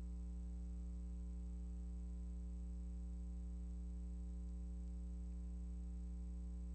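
Steady electrical hum, strongest in its low drone, with a buzz of fixed overtones above it and a faint high whine.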